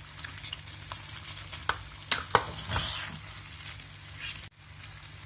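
Steel spoon scraping and clinking against an aluminium pot as chicken pulao is pushed around. Beneath it, the rice and ghee sizzle steadily over a high flame. There are a few sharp clinks, the loudest a little past two seconds in.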